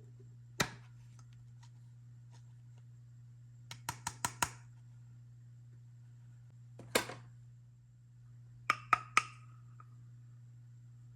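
Small hard toy tea-set pieces being handled and set down, clicking and tapping together: a single click, a quick run of five, another tap, then three sharp taps near the end that ring briefly. A steady low hum runs underneath.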